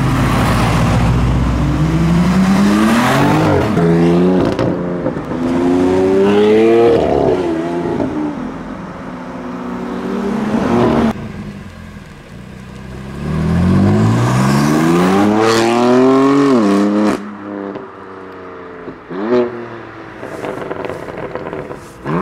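BMW M4 F82's twin-turbo inline-six accelerating hard in several separate runs. The engine pitch climbs and drops back at each upshift, with a short rev near the end.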